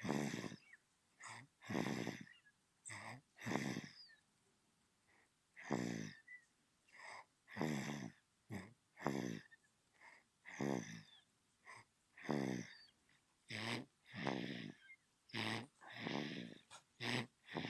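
Newborn baby snoring in sleep: short, rattling snores and breaths coming irregularly, about one to two a second, with a brief pause about four seconds in.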